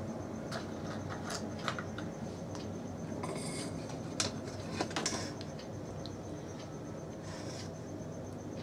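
Small clicks, taps and brief scrapes from a circuit board and bench tools being handled, over a steady faint hum.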